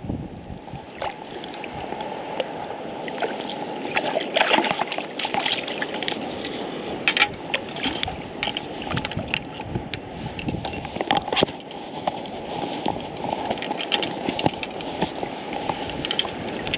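Shallow water sloshing and splashing around a landing net that holds a sea trout, with many sharp splashes and clicks scattered through it.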